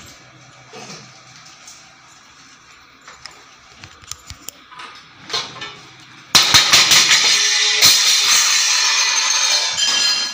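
Faint rustling and a few small clicks, then about six seconds in a sudden loud clatter of metal kitchen utensils and vessels being knocked and banged about, with many sharp strikes, for about four seconds.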